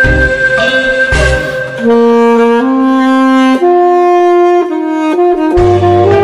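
Tenor saxophone playing a slow melody in long held notes over a backing track. Bass and drums play alone at first; the sax comes in about two seconds in over a sparse accompaniment, and the bass and drums come back in near the end.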